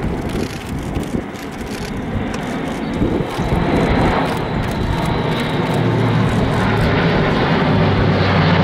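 Airbus A400M's four TP400 turboprop engines and eight-bladed propellers droning as it flies a banking pass overhead. A low, steady propeller hum comes in a few seconds in and grows stronger as the aircraft draws nearer.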